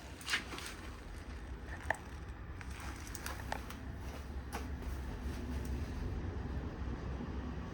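Ryobi TS-381 tabletop cut-off saw running with no load: a steady low hum that grows slowly louder, with a few light clicks in the first few seconds.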